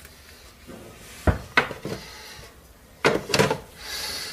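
A few sharp knocks and clatters of household objects being handled, like a cupboard or fridge door and things inside it: two close together about a second in and two more near three seconds.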